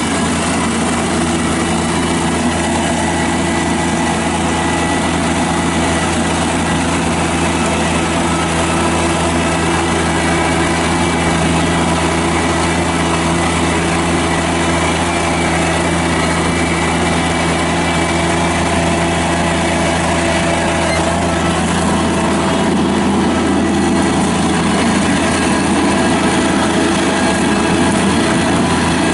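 Toro Dingo TX525 mini skid steer's Kubota diesel engine running steadily, its note shifting and growing a little louder about three-quarters of the way through.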